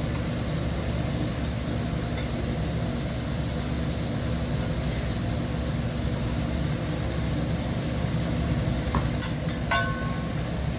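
Food sizzling on a hibachi griddle, a steady hiss over a low hum. A few sharp metallic clinks come about nine to ten seconds in.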